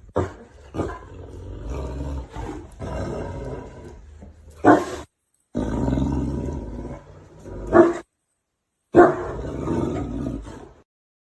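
An animal's loud growling calls in several stretches, broken off abruptly twice, with the loudest calls about halfway through, near eight seconds and at nine seconds.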